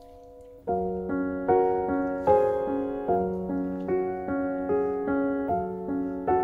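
Background piano music: a held chord dies away, then a gentle melody starts again under a second in, its notes coming at an even, unhurried pace.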